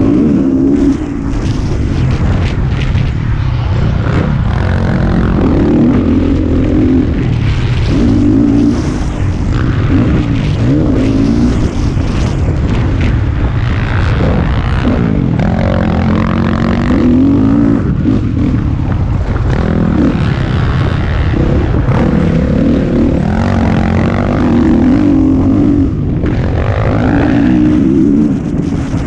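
Motocross dirt bike engine heard from on board, revving up and falling off again and again as the rider works through the gears, over a steady wind rush on the microphone.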